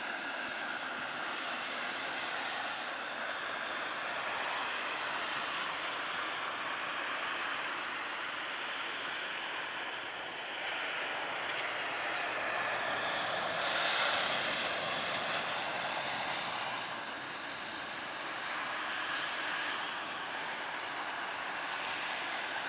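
Distant jet engine noise from a Boeing 737-800 freighter moving on the airfield: a steady, even rush that swells to a peak a little after halfway, mixed with wind on the microphone.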